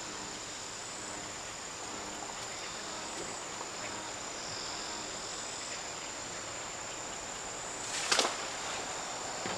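Steady high-pitched insect buzzing, and about eight seconds in a short splash as a snakehead is dropped back into the pond.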